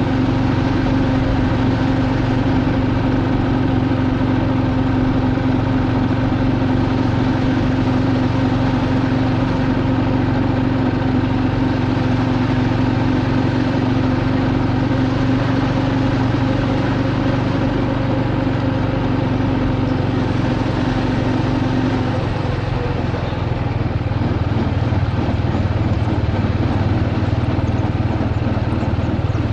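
A motor vehicle's engine runs steadily while moving slowly, a continuous drone with a low hum. A steady higher hum in it stops about three-quarters of the way through, and the engine keeps running after that.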